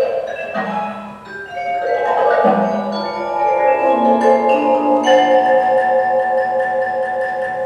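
Music played back with pitched mallet percussion: notes struck one after another and left to ring, overlapping into chords. About five seconds in, a wavering chord sets in and is held.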